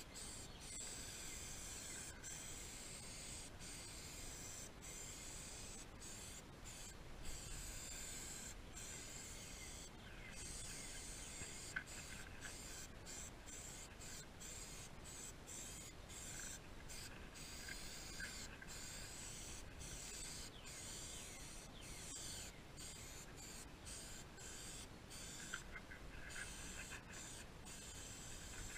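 Aerosol can of Cover All protectant spraying in a long series of hissing strokes, each cut by a short pause as the nozzle is released and pressed again.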